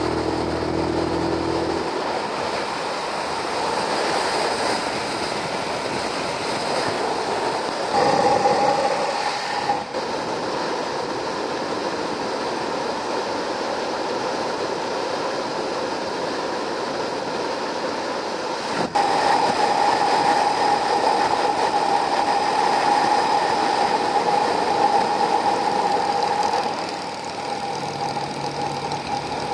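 Motorcycle riding at road speed: steady wind rush over the microphone mixed with engine and tyre noise, with a humming drone that comes and goes. The sound changes abruptly a few times, louder from about 19 to 27 seconds.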